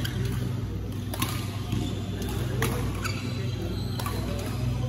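Badminton rackets striking a shuttlecock in a rally: sharp smacks about every second and a half over a steady low hum.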